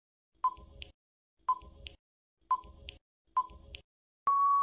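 Quiz countdown timer sound effect: a short beep about once a second, then a long steady beep starting near the end as the count runs out.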